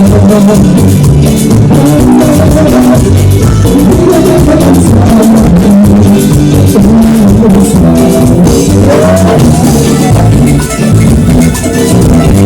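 Live band playing loudly, an instrumental passage carried by drum kit, bass and guitar.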